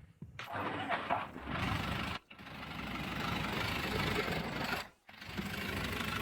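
Old Foton mini truck's diesel engine being cranked and run with a fast even pulse, in three short stretches cut off abruptly about two and five seconds in.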